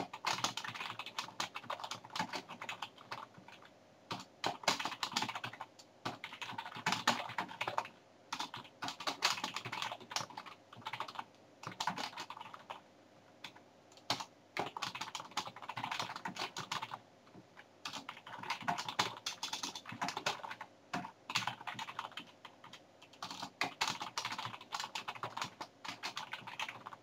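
Typing on a computer keyboard: quick runs of key clicks broken by short pauses every few seconds.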